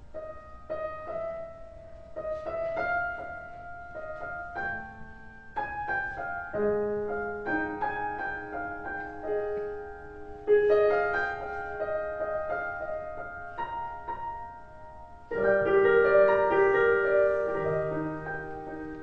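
Piano on an electric stage piano, slow sustained chords under a melody line, swelling to fuller, louder chords about fifteen seconds in.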